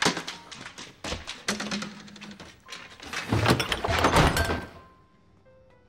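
A run of knocks and thuds, then a louder, noisy rushing stretch about three seconds in that dies away near the end.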